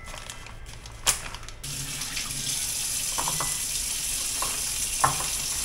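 Kitchen tap running as raw chicken is rinsed under it in the sink. The water comes on about a second and a half in, just after a sharp knock, with light knocks of handling under the steady stream.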